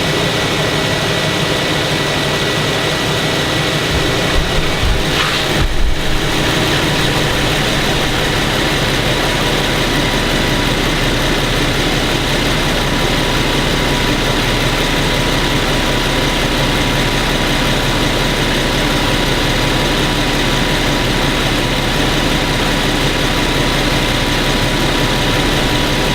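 2015 Infiniti Q70's 3.7-litre V6 idling steadily, semi-warm after sitting a few hours; a short irregular noise about five seconds in, then an even, quiet idle.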